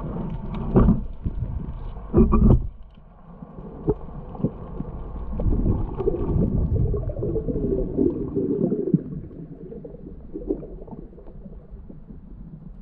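Muffled underwater sound of moving water, low rumbling and gurgling, with a few loud thumps in the first three seconds.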